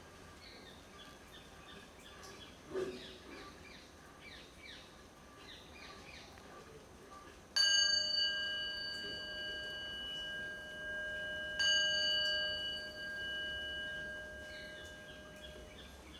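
A Buddhist bowl bell (kin) struck twice, about four seconds apart, each strike ringing on in several clear tones and slowly fading. Before the first strike there are short falling bird chirps and a soft thump.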